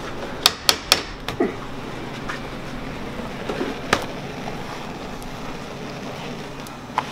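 A few sharp metallic clicks and knocks as a mass of pulled hard candy is lifted off a metal candy hook and handled on the worktable. Three come in quick succession about half a second in, with single ones near the middle and near the end, over a steady low hum.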